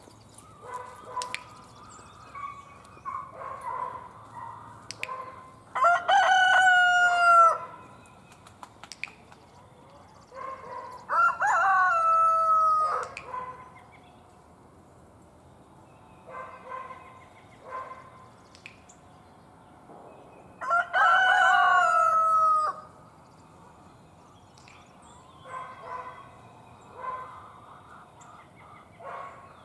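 Rooster crowing three times, each crow lasting about one and a half to two seconds, with quieter chicken calls in between.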